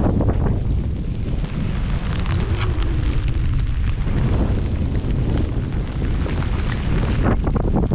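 Strong storm wind buffeting the microphone in a continuous low rumble, with scattered sharp taps of rain and spray.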